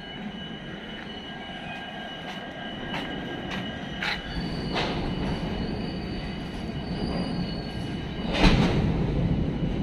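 Railway train moving on the track, a rumble that slowly grows louder with steady high-pitched metallic tones over it. Several sharp clanks come through, the loudest about eight and a half seconds in.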